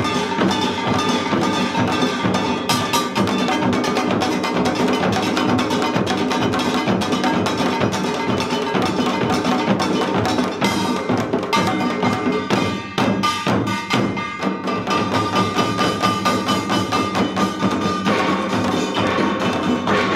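Samulnori ensemble of janggu hourglass drums, buk barrel drums and gongs playing a fast, dense rhythm, with small gongs clanging over the drums. About twelve seconds in, it thins to a few separate strikes for a couple of seconds before the full ensemble comes back in.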